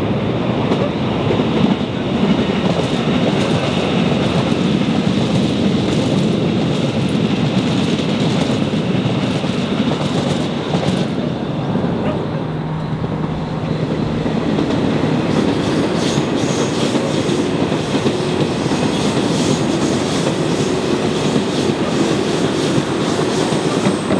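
Seoul Subway Line 4 electric commuter train running on the track: steady wheel-and-rail noise with clickety-clack over the rail joints. A low steady tone comes in about halfway, and higher steady tones join it in the second half.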